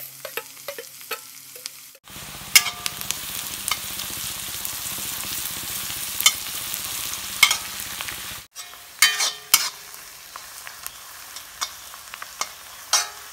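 Sliced onions, green chillies and curry leaves sizzling in hot oil in an iron kadai, stirred with a steel spatula that scrapes and clicks against the pan. The sizzle is loudest in the middle stretch and drops abruptly twice at cuts.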